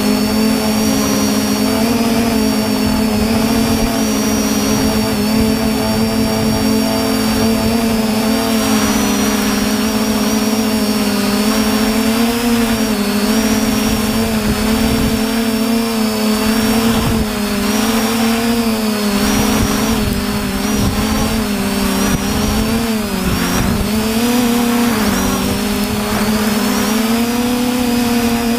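TBS Discovery quadcopter's brushless motors and propellers buzzing steadily as it flies, the pitch wavering slightly with throttle and dipping briefly late on. Wind rushes over the onboard camera's microphone underneath.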